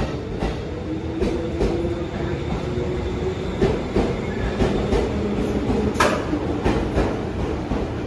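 A 211 series electric train rolling past a station platform, running with a steady rumble and hum while its wheels clack over the rail joints in quick pairs. The sharpest clack comes about six seconds in.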